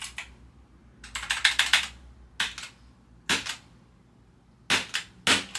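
Typing on a budget mechanical keyboard whose keys have begun failing: a quick run of keystrokes about a second in, then short groups of key clicks about every second.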